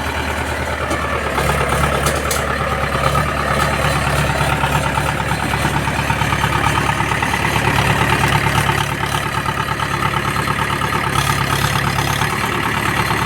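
A heavy engine idling steadily with a fast, even pulsing.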